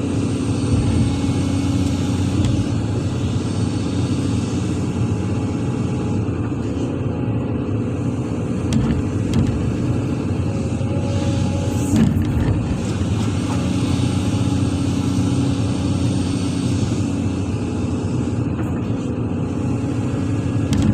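Heavy diesel engine running steadily, with one brief knock about twelve seconds in.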